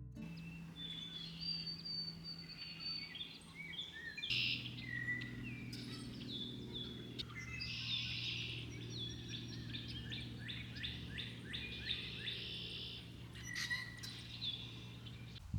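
Several songbirds chirping and trilling in short overlapping calls, over a low steady hum.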